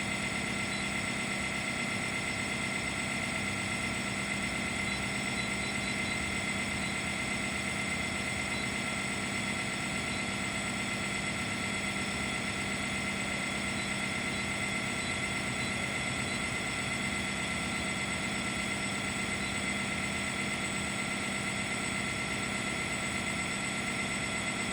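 Sawmill's power unit running steadily: a constant, unchanging machine drone with several steady tones in it.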